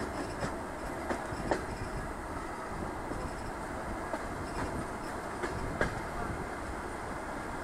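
DR1A diesel multiple unit running at speed, heard through an open carriage window: a steady rumble of wheels and running gear, with a scattering of sharp clicks and knocks from the wheels on the track.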